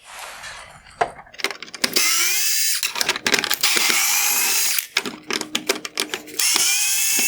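Power screwdriver backing out the T15 Torx screws that hold a headlight's adjuster-cable bracket, running in several whirring spells, each rising in pitch as the motor spins up, with short clicks between them.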